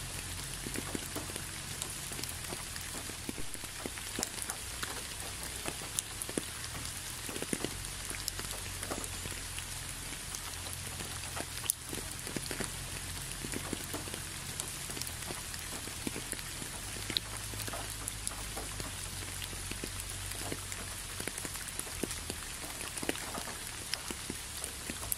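Steady rain falling, a continuous hiss with many separate drops ticking at irregular moments.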